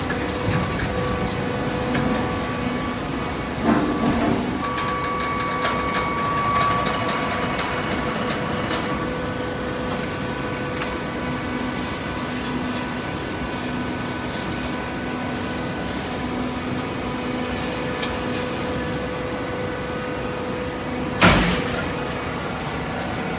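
Automatic hydraulic waste paper baler running with a steady mechanical hum. There is a knock about four seconds in and a loud clank near the end.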